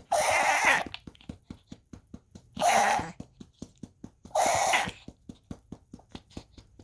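A pet coughing in three harsh, hacking bursts, each about half a second long and about two seconds apart.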